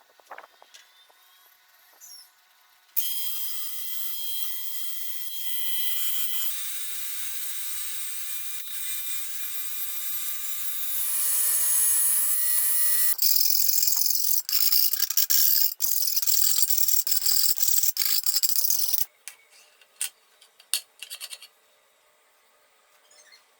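Angle grinder running with a high whine, starting abruptly about three seconds in. Its sound changes several times as it works, then it stops abruptly near the end, followed by a few light clicks.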